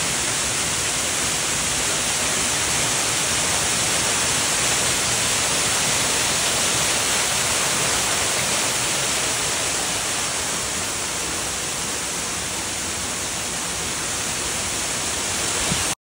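Waterfall pouring down a rock face, heard close up: a steady hissing rush of falling water.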